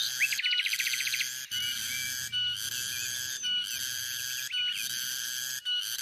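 Cicadas buzzing in a shrill, high drone that breaks off and resumes about once a second. Birds call over it: a rapid trill about a dozen notes long near the start, then a few short rising-and-falling chirps.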